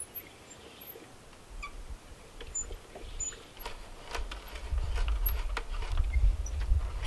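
Hand brace turning a spiral auger bit into a timber beam: the bit creaking and scraping as it cuts out wood chips, with scattered clicks, growing louder about halfway through.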